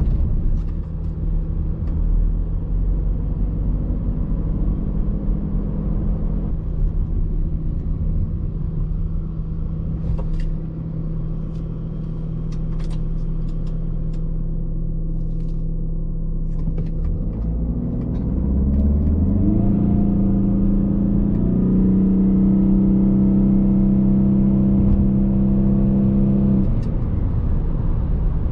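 Audi A6's 2.0 TDI four-cylinder diesel running steadily, then under hard acceleration the revs climb for a few seconds and hold at one steady pitch while the Multitronic CVT keeps the engine speed constant as the car gains speed. The revs drop near the end.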